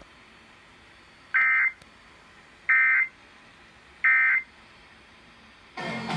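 Three short bursts of EAS digital data tones, each a fraction of a second long and about a second and a half apart: the end-of-message code that closes an Emergency Alert System broadcast, heard through a weather radio.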